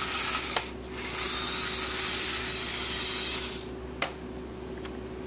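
Lego 9-volt train motor whirring as the locomotive runs in reverse along the metal-railed track; the whir stops a little before four seconds in. A few sharp clicks follow.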